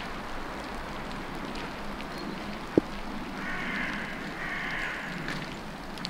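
Steady rain falling, with a single sharp tap about three seconds in and a faint two-part call in the middle.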